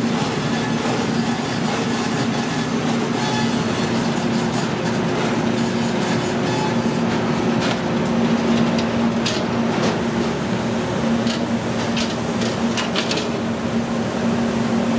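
Steady hum and whoosh of commercial kitchen machinery, such as ventilation fans and a broiler, with a few light clicks and clatters in the middle.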